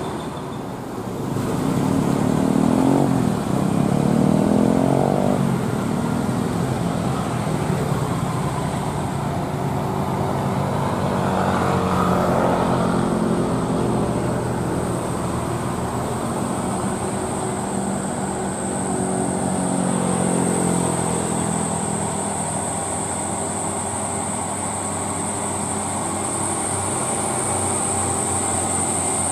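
Diesel engine of a loaded Mitsubishi Fuso Canter dump truck labouring up a hill, its note rising and falling several times. A thin, steady high-pitched tone sits above it and grows stronger in the second half.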